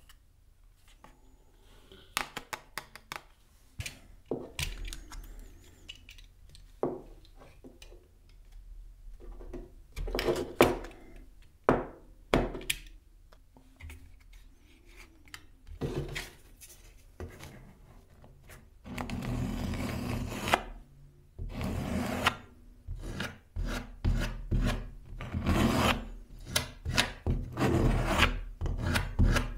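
Serrated edge of a plastic card scraped back and forth across a wooden board in repeated rasping strokes. These take over about two-thirds of the way in, after scattered clicks and short scrapes of the card being handled.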